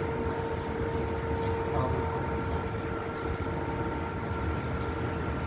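Steady mechanical hum with a constant tone and its overtones over a low rumble of street traffic, unchanging throughout.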